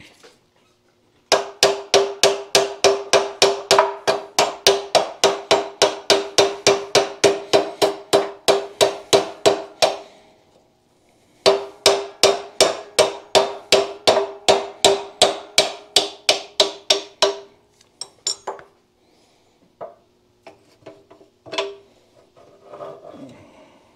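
Brass hammer striking the shift rail in a 1927 John Deere D transmission case in fast, even blows, about four a second, each with the same metallic ring: pounding the rail loose to drive it out. The blows come in two long runs with a short pause between, followed near the end by a few lighter clinks.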